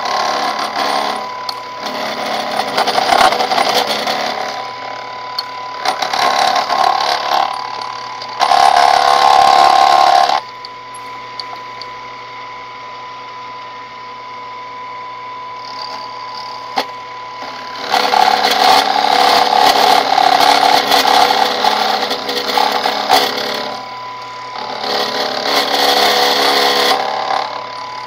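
Benchtop milling machine cutting a notch in a clamped metal part with an end mill. The spindle motor's steady whine runs throughout, with loud spells of metal-cutting noise as the cutter is fed in. For several seconds in the middle the cutting stops and only the quieter motor whine is heard, until the cut resumes.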